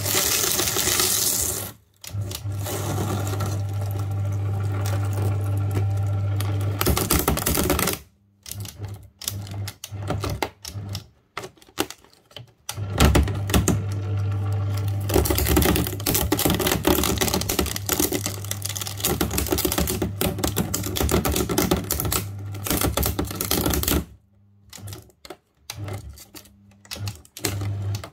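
Electric paper shredder's motor running as its cutters chew through thin plastic sheets and wires from an old DVD player, with a dense rapid clatter over the motor hum. It stops about eight seconds in and runs in short spurts, then runs steadily again from about thirteen seconds. It stops near twenty-four seconds and comes back in short spurts near the end.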